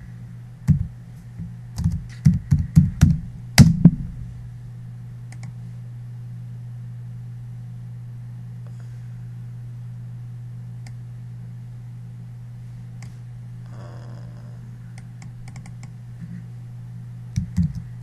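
Computer keyboard keystrokes and mouse clicks: a quick run of sharp key taps in the first few seconds, then a long stretch with only a few faint clicks, and more taps near the end. A steady low electrical hum sits underneath throughout.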